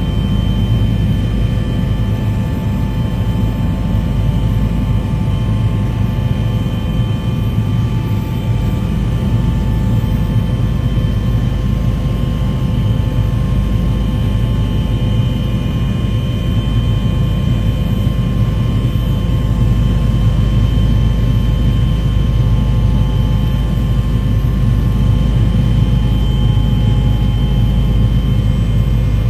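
Aircraft cabin noise: a steady, loud engine drone, mostly low rumble with faint steady tones above it.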